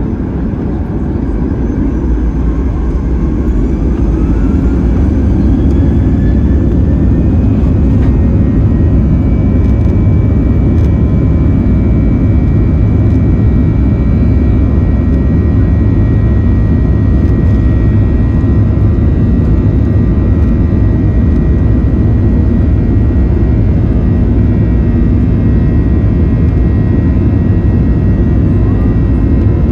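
Boeing 737-800's CFM56-7B jet engines spooling up to takeoff thrust, heard from inside the cabin: a rising whine as the noise builds over the first several seconds, then steady and loud at full thrust through the takeoff run.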